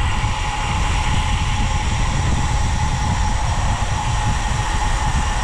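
Wind rushing over the camera microphone and tyres running on asphalt during a fast road-bike descent: a heavy, steady rumble with a thin steady whine over it.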